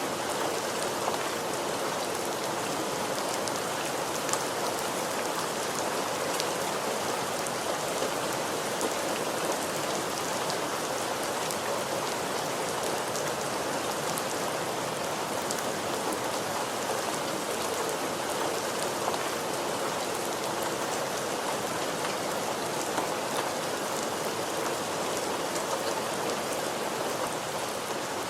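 Steady rainfall, an even hiss of rain on a surface with scattered individual drops ticking through it.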